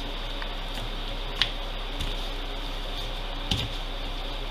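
Steady hiss and hum of a background fan, with a few sharp clicks as hands press meat into breadcrumbs in an aluminium foil pie tin, the clearest about a second and a half in and about three and a half seconds in.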